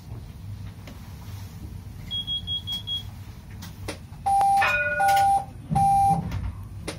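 A standing tram beeps: a quick run of short high beeps, then three loud long beeps, the kind of warning a tram gives before its doors close, over the low steady hum of the tram at rest.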